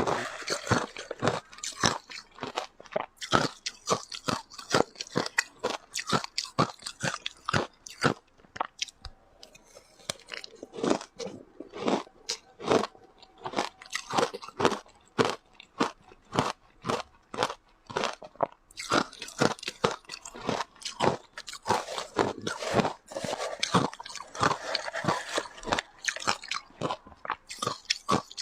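Ice being bitten and chewed close to the microphone: a dense run of sharp crunches, several a second, with a short lull about a third of the way in.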